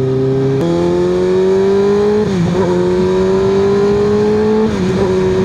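Kawasaki ZX-6R 636's inline-four running through an M4 slip-on exhaust with the Q3 Stage 2 baffle installed, under way: a steady engine note that climbs slowly in pitch, with a step about half a second in and two brief dips about two and four and a half seconds in. With the baffle in the tone is deep and without drone.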